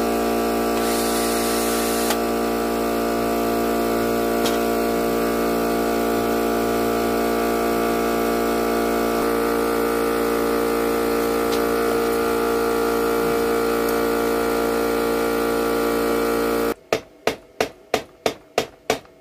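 Cordless drill running at a steady speed for about sixteen seconds, then cutting off. Then about eight quick hammer blows, roughly three a second.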